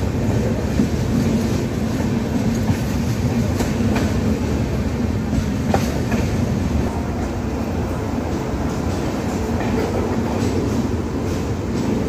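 Indian Railways express passenger coaches rolling slowly along a station platform as the train comes in to arrive, heard from the open coach doorway. A steady rumble of wheels on rail with occasional sharp clicks, easing a little in the second half.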